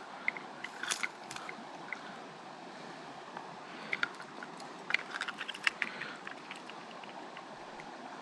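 Creek water running steadily, with scattered small clicks and rustles of handling about one second in and again between about four and six seconds.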